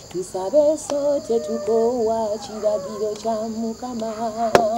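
A woman singing a gospel song unaccompanied, holding long notes with vibrato.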